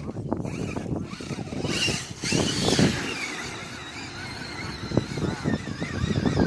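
Electric motor of a radio-controlled scale truck whining as it drives, the pitch falling and then wavering with the throttle, with a rush of noise about two seconds in.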